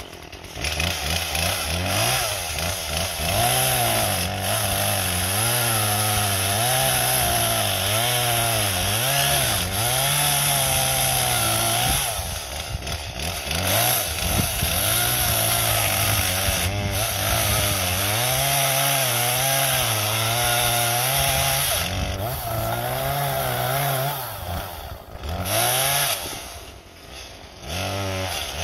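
Two-stroke chainsaw running hard and cutting, its engine pitch rising and falling over and over. The engine drops back briefly about twelve seconds in, again at about twenty-two seconds, and near the end.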